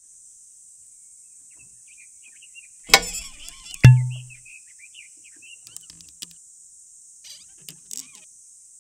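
A sharp click with rustling about three seconds in, then a louder click with a short low hum as a green-shaded brass desk lamp is switched on. Soft bird chirps come and go through the middle, and a few light knocks follow near the end.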